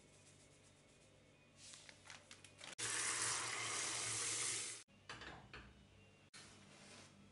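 Kitchen tap water running into a metal saucepan of peeled potatoes, a loud, steady splashing rush of about two seconds that starts and stops abruptly. Faint clicks come before it, and soft knocks after.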